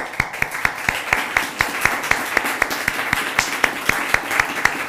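Seated audience applauding steadily, with one nearby pair of hands clapping loudly about four times a second on top of the wash of claps.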